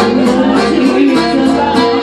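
A woman singing into a microphone over amplified music with a steady beat.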